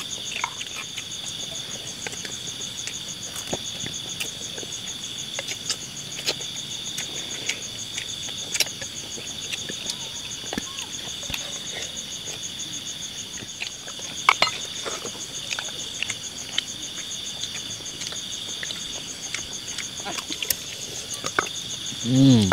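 Steady chorus of crickets trilling in high, continuous bands, with scattered light clicks and taps of spoons on plates as people eat.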